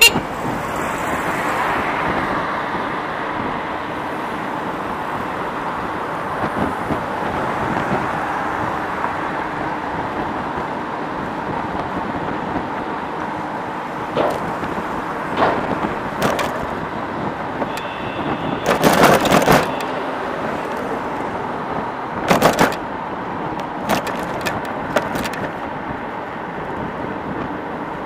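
Street traffic heard from a moving e-bike: a steady rush of wind and road noise, broken by several short clatters, the loudest and longest about 19 seconds in.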